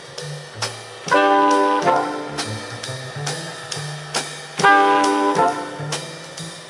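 Big-band jazz played back through Dynaco A-10 bookshelf loudspeakers driven by a Technics SE-A100 power amplifier: a brass section over drum kit and a stepping bass line, the horns hitting loud chords twice, about a second in and again near five seconds.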